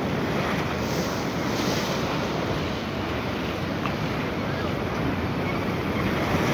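Ocean surf breaking and washing over a rock shelf in heavy seas, with wind buffeting the microphone.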